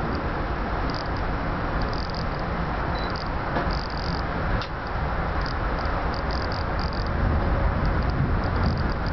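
Steady running rumble of a Twilight Express sleeper coach on the rails, heard from inside the compartment, growing a little louder about seven seconds in. Short high squeaks come and go throughout.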